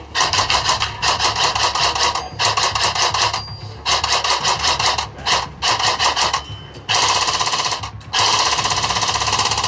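PTS RM4 ERG electric airsoft rifle firing on full auto in quick strings with short pauses between them; the last two strings, starting about seven seconds in, are the longest.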